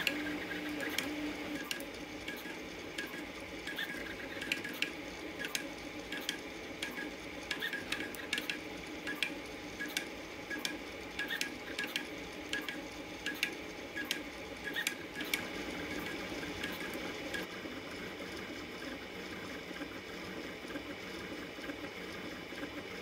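Artillery Genius Pro FDM 3D printer printing at high speed with high acceleration: its stepper motors run with a steady whir under many sharp ticks, which grow sparser after about 17 seconds.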